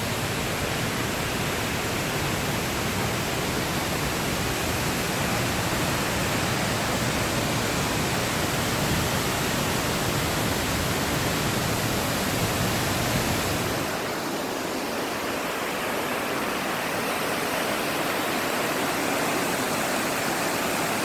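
Great Falls of the Passaic River, a large waterfall, with its steady rush of falling water. About two thirds of the way through, the deep low rumble drops away, leaving a thinner, hissier rush.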